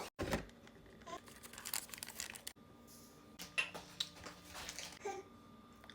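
Chocolate being handled: scattered crinkling and crackling, a run of short sharp clicks, with a couple of faint short high blips.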